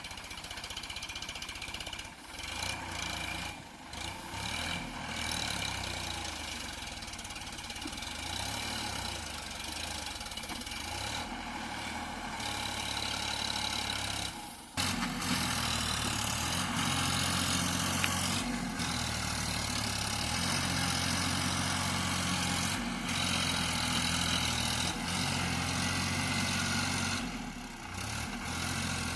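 Diesel engine of a JCB backhoe loader running as it digs and loads soil, its pitch shifting with the load. It drops away briefly about halfway through, then comes back louder.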